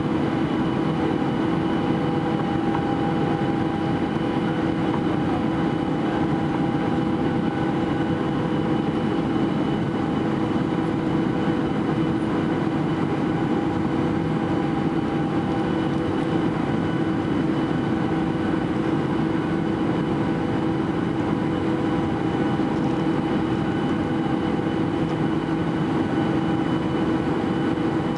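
Steady cabin noise inside a Boeing 737-800 in flight: the drone of its CFM56-7B turbofan engines and the rush of air past the fuselage, a constant hum with a few fixed tones in it.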